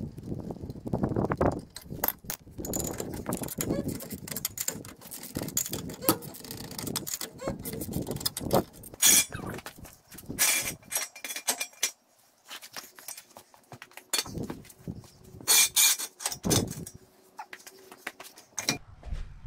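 Clicks, knocks and metal clanks of hand tools on a truck's rear end: a wrench breaking loose the lug nuts, then a floor jack being worked and steel jack stands set down on concrete, with a few loud clanks partway through.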